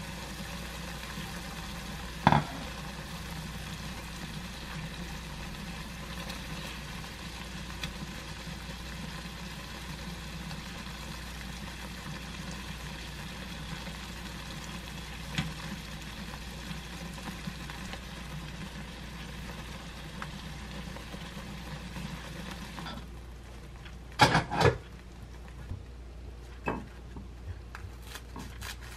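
Tomato sauce with eggs sizzling steadily in a frying pan on a gas stove, with a single knock about two seconds in. Near the end, crisp toast being cut with scissors: a few sharp crunching snips.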